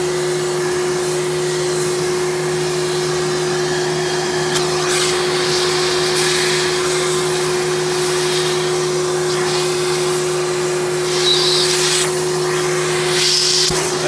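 Simplicity 7350 upright vacuum running, its 12-amp two-stage motor giving a steady hum under a rush of air. The airflow noise swells and eases several times.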